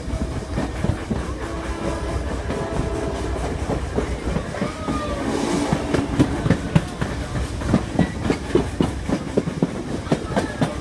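Passenger train rolling along the track, heard from an open coach window: a steady rumble with the wheels clicking over rail joints. The clicks get sharper and closer together from about halfway through.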